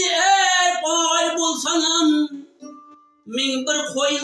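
A man singing a Khorezm folk song in full, wavering voice, accompanied by his own plucked tar. The voice breaks off for about a second past the middle, leaving only a faint held note, then the singing comes back.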